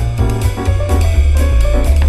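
Background music: jazzy instrumental with a strong bass line, drum kit and piano, keeping a steady beat.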